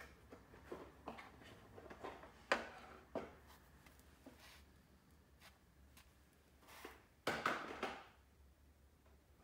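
Scattered faint knocks and clicks, as of things being handled on a wooden surface, with a sharper knock about two and a half seconds in and a short clatter about seven seconds in.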